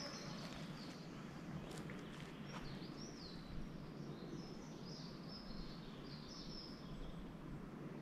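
Small woodland birds singing: a run of high chirping, warbling phrases, over a steady low background noise, with a couple of faint clicks about two seconds in.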